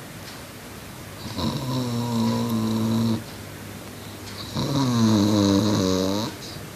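A boy snoring: two long snores of about two seconds each, with a droning tone, the second louder than the first.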